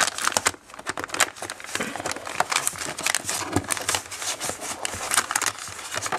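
Thin clear plastic packaging tray and a foil mask sachet crinkling and crackling as they are handled, in quick irregular crackles.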